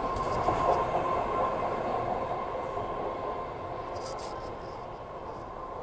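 BART Fleet of the Future subway train pulling out of an underground station and running off into the tunnel, its rumble and steady whine slowly fading. A few short, hissing clicks come from it about half a second in and again about four seconds in.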